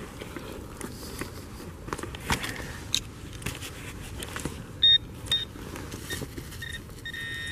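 Wood-chip playground mulch rustling and crunching as it is scraped aside by hand and a digging tool, with scattered sharp clicks. From about five seconds in, a Garrett Ace metal detector gives several short beeps on a buried coin target, then a steady held tone near the end.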